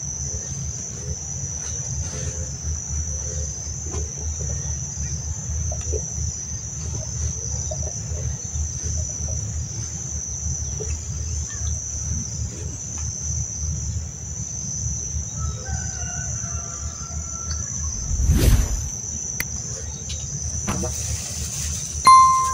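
Steady high-pitched drone of insects chirring over a low outdoor rumble, with a single thump about eighteen seconds in.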